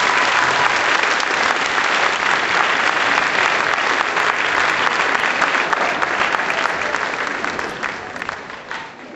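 Large audience applauding steadily, with many hands clapping at once. The applause fades away over the last couple of seconds.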